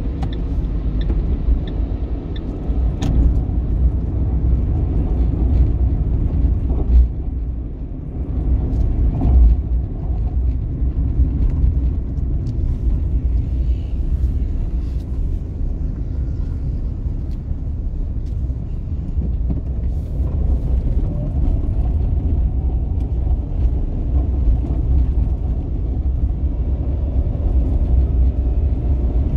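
Road noise inside a moving car's cabin: a steady low rumble of tyres and engine, with a few short knocks.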